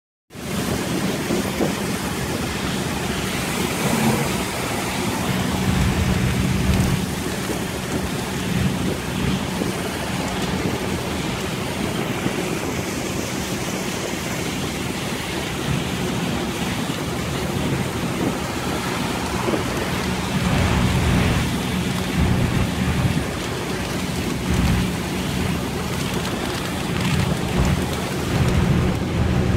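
Heavy rain on the windscreen and roof of a moving vehicle, heard from inside the cabin, over the steady low hum of the vehicle's engine and wet-road noise.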